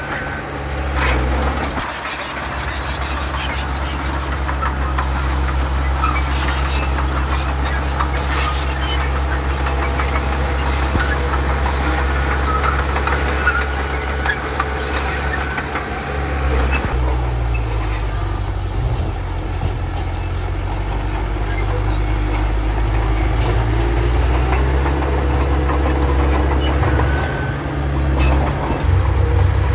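Komatsu D31 bulldozer's diesel engine running steadily under load, its note shifting about halfway through, with the squeal and clank of the steel tracks.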